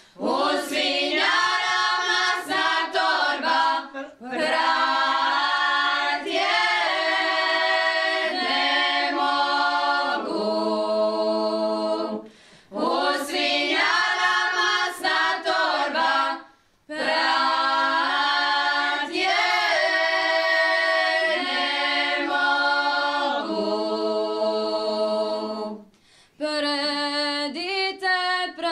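A women's group singing a Šokac folk song a cappella, unaccompanied voices together in long phrases, several ending on a held note, with short pauses for breath between them.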